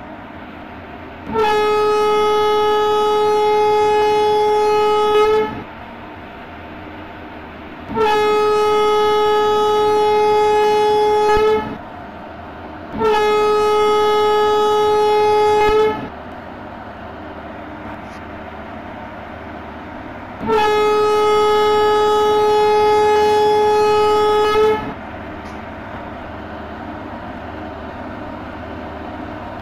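Train horn sounding four long, steady blasts on one note, each lasting about three to four seconds, over the continuous running noise of a train.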